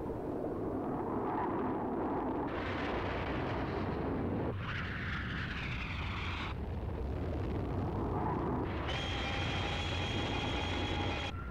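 Sci-fi spacecraft flight sound effects: a steady jet-like rumble and rushing noise that shifts with each shot, with a sweeping whoosh about five seconds in. Near the end comes a steady electronic whine of ray-beam fire lasting about two seconds.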